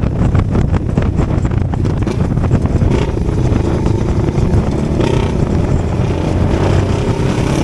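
Motorcycle engine and exhaust running under way, with rushing noise over the top. About three seconds in the engine note settles into a steady tone.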